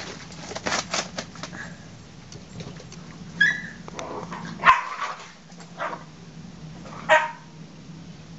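Young shepherd/malamute puppies yipping and barking in short single calls: a high yip about three and a half seconds in, then three short barks, the loudest a little before five seconds in. Some rustling and clicking comes before the calls.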